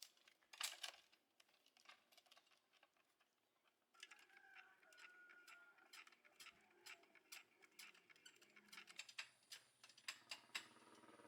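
Near silence broken by faint, scattered clicks and light taps, one a little louder near the start. A faint steady hum creeps in near the end.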